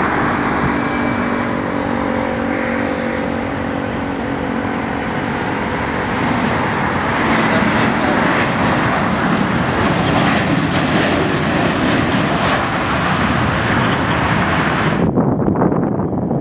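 Boeing 737 airliner's CFM56 turbofan engines during landing: a steady jet whine with humming tones as it comes in, growing into a louder, broader rush as it passes close along the runway. About a second before the end it cuts abruptly to wind buffeting the microphone.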